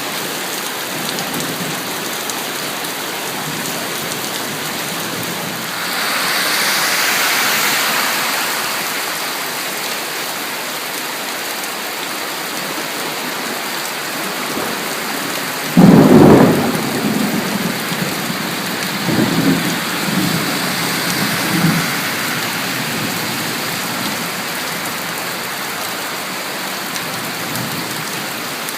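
Heavy rain falling steadily, swelling for a few seconds about six seconds in. About sixteen seconds in a sudden loud thunderclap breaks, followed by several seconds of rumbling thunder.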